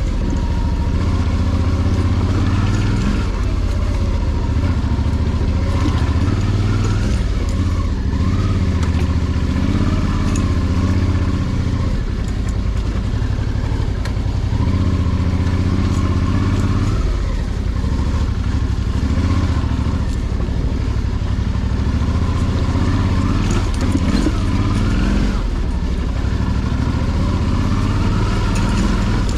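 Suzuki V-Strom DL650's V-twin engine running while the motorcycle is ridden over rough ground, its pitch rising and falling with the throttle.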